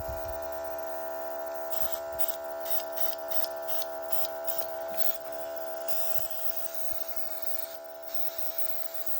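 Small airbrush compressor running with a steady electric hum, quiet for its kind. Over it the airbrush hisses as it sprays thinned acrylic paint: a quick run of short on-off bursts about two seconds in, then a longer spray a few seconds later.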